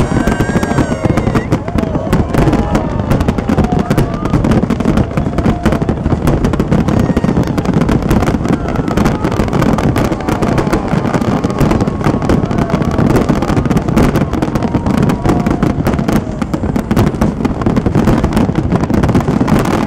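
Aerial fireworks display: a dense, continuous run of bangs and crackling shell bursts.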